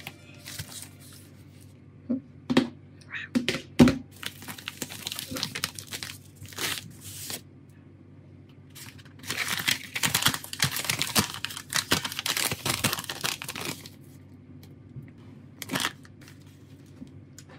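Hands taking a phone apart: a few sharp clicks and taps in the first few seconds, then about five seconds of crackling, tearing noise from around nine seconds in, and one more click near the end.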